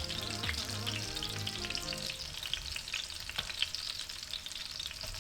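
Panko-crumbed salmon pieces frying in a shallow layer of hot oil: a continuous sizzle with fine, rapid crackling.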